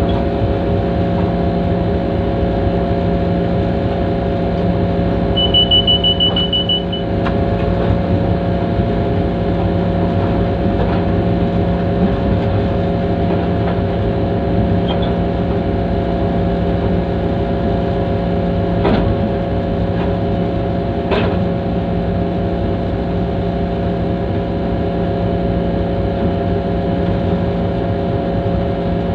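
Diesel engine of a GMCU-15 diesel-electric locomotive running steadily, heard from the locomotive's own front platform while it moves slowly along yard tracks. A short high-pitched tone sounds for about a second and a half, around six seconds in.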